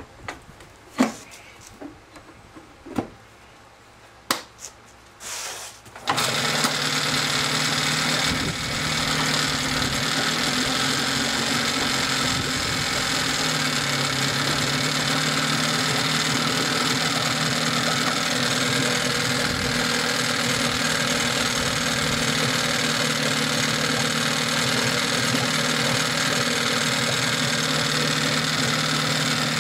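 A few clicks and knocks as the outboard's cowling is fitted, then about six seconds in the Johnson 15 HP two-cylinder two-stroke outboard engine is running, steady and loud.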